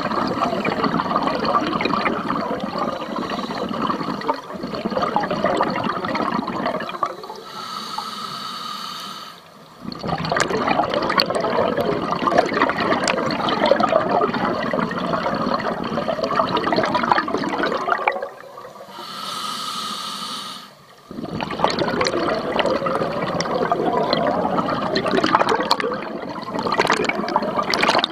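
Scuba diver breathing through a regulator: long bursts of bubbling and gurgling from the exhaled air, twice broken by a short hissing inhale through the demand valve.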